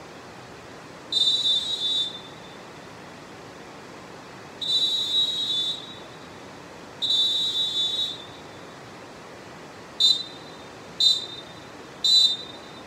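Molten Dolfin Pro pealess referee whistle blown in six blasts: three of about a second each, then three short, sharp toots about a second apart, each a high, steady, unwavering tone.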